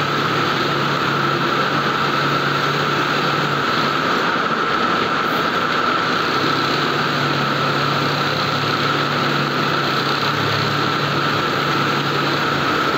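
Heavy-duty industrial sewing machine running steadily while stitching a woven polypropylene bulk bag, among the constant whir of factory machinery. A lower hum drops out for a few seconds about four seconds in, then returns.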